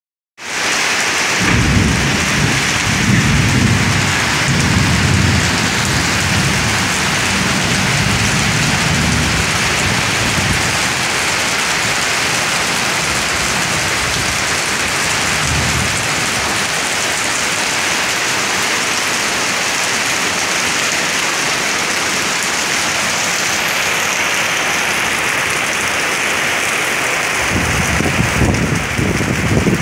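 Heavy tropical downpour hissing steadily, with low rolling thunder rumbling through the first ten seconds, briefly again a little past the middle, and once more near the end.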